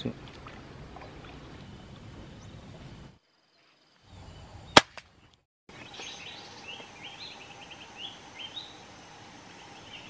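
Open-field ambience cut in and out with short silent gaps, with a single sharp crack about halfway through. From about six seconds in, birds call in a run of short rising chirps over a steady tone.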